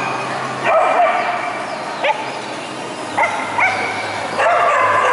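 A dog yelping and whining in high-pitched calls, several short ones and a longer one near the end.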